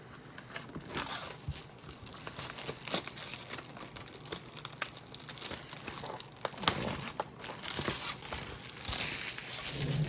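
Plastic shrink-wrap crinkling and tearing as it is pulled off a trading card box: a continuous crackly rustle full of small sharp snaps.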